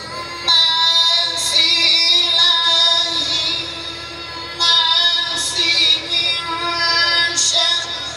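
A single high voice singing devotional chant in long, held, wavering notes. New phrases start about half a second in and again near five seconds, with a softer held stretch in between.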